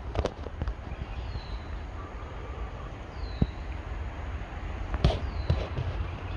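A bird repeating a short, high call that falls in pitch, about every one and a half to two seconds, over irregular clicks and knocks of footsteps on a trail and a low wind rumble.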